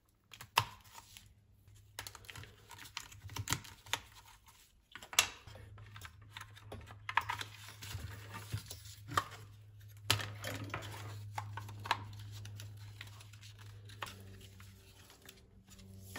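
Irregular plastic clicks, taps and rattles of a dash bezel being worked on by hand: a 12-volt power socket is pried out with a screwdriver and a flush-mount USB/aux adapter is fitted in its place. A steady low hum runs underneath through most of the middle.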